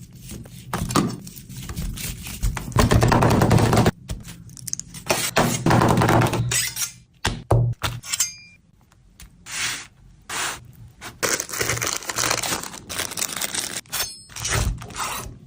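Food-preparation noises: irregular knocks, cracks and scrapes with stretches of crackling noise, in short pieces that start and stop abruptly.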